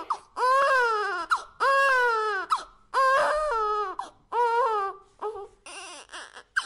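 Baby-like crying voiced for a cartoon fox cub: four long wailing cries, each about a second, rising then falling in pitch, then a few short sobbing breaths near the end.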